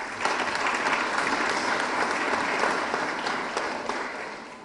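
Audience applauding, holding steady and then dying away over the last second and a half.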